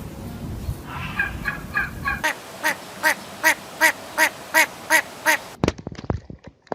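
A pheasant giving a run of about ten loud, harsh, evenly spaced calls, roughly three a second, after a few softer, quicker notes. The calls stop suddenly and are followed by a few sharp clicks.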